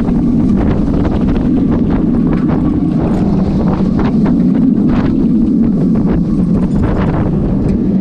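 Wind buffeting the microphone of a rider on a fast-moving amusement ride: a loud, steady, deep rush with frequent rattling knocks from the ride.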